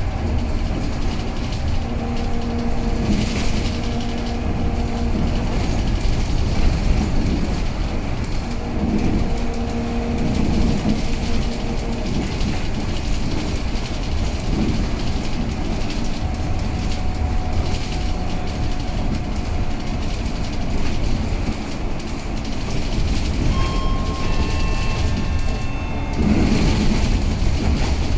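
Scania L94UB city bus running at full throttle, heard from inside the passenger cabin: a loud, steady low rumble of engine and road noise. A humming tone comes and goes twice in the first half, and the noise grows louder near the end.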